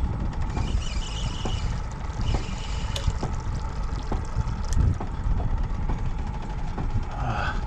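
Boat motor running slowly with a low, steady rumble, and water splashing against the hull.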